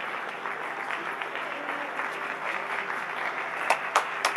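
Many people clapping in a steady wash of applause, with a few sharper, louder close hand claps near the end.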